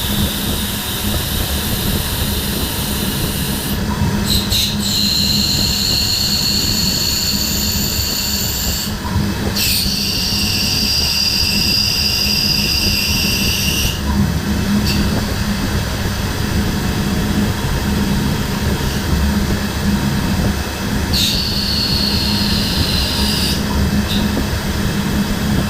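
DMG Mori NTX1000 CNC mill-turn machine running with a steady low hum while cutting brass. A high-pitched whine comes in and out in stretches of a few seconds, four times, as the tool cuts.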